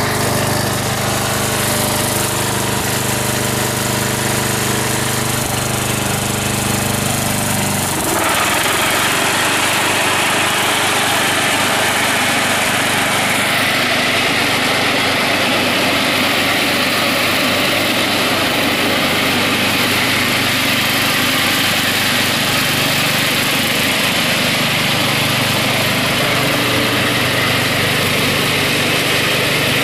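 The engine of a 1991 Murry 12 hp riding lawn mower, with a rebuilt engine and carburetor, running steadily. About eight seconds in, the sound turns fuller and rougher as the mower runs under load, cutting grass.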